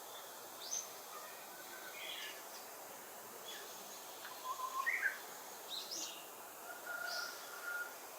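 Wild birds calling and singing: scattered short chirps and whistles at several different pitches, busiest about halfway through, over a steady outdoor hiss.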